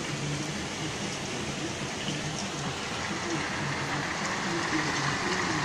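Heavy rain pouring down: a steady hiss with faint scattered drop ticks, growing a little louder near the end.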